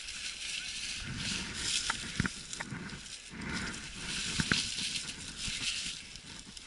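Dry fallen leaves rustling and crackling on the woodland floor, with a few sharp snaps of twigs.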